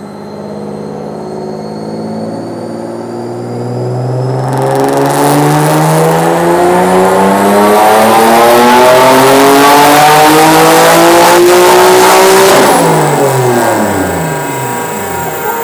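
Single-turbo Nissan 370Z's 3.7-litre V6 making a wide-open-throttle dyno pull. The engine note climbs steadily in one gear for about twelve seconds, joined by a loud rushing noise from about four seconds in. It then drops away quickly as the throttle closes near the end.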